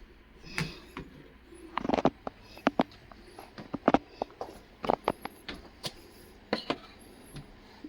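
Footsteps and scattered, irregular knocks and clicks of things being handled and carried while a person walks.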